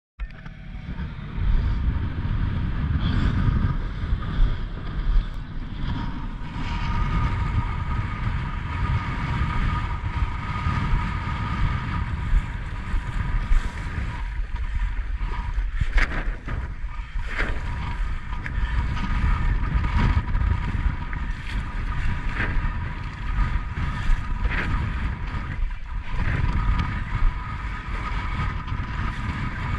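Wind rumbling on an action camera's microphone as a windsurf board sails through shallow water, with water splashing and a few sharp knocks from the board and rig. A faint steady whine runs underneath.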